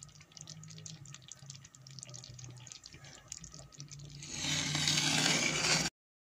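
A pot of thick milk kheer simmering, with small bubbles popping in irregular ticks over a low steady hum. Near the end a louder hiss sets in for about two seconds and then cuts off suddenly.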